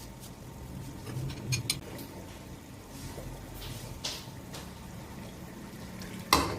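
Kitchen cooking sounds over a steady low hum: a few light utensil clicks, a brief splash of liquid, and a louder clatter of a utensil against a pot near the end.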